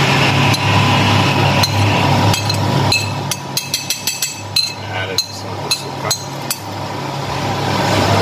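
A plate and a metal spoon clink and tap against a frying pan as chopped red chilies are scraped off into the chicken. The clinks come as scattered sharp taps that turn into a quick run in the middle, over a steady low hum.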